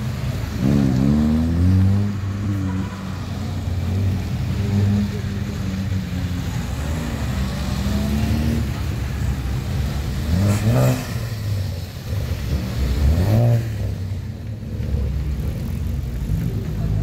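Cars pulling away one after another, their engines revving up as they accelerate off, with quick rising revs about a second in and two sharper ones in the last third.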